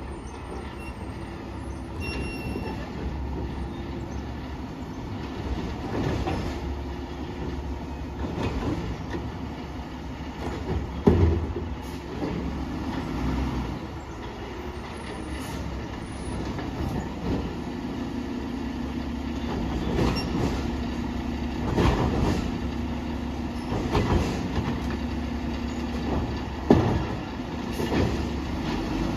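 Garbage truck working unseen: its engine drones steadily while sharp metal clanks and knocks come every few seconds, the whole growing gradually louder.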